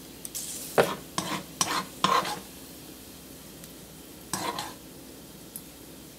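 Metal spoon scraping and scooping across a stone-coated nonstick wok while ladling out hot garlic oil: several short scrapes in the first two seconds and one more about four and a half seconds in. The hot oil sizzles faintly underneath.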